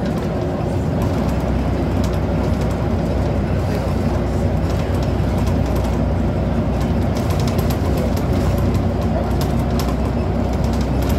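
Scania CN94UB Omnicity single-decker bus heard from inside the passenger saloon while under way: a steady engine and road drone with scattered light clicks and rattles.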